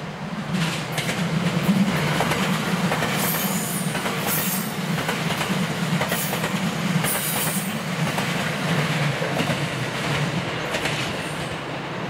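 A JR West 227 series electric multiple unit passing close by on a curve. Its wheels clatter over the rail joints under a steady low hum. High-pitched wheel squeals break in several times in the middle.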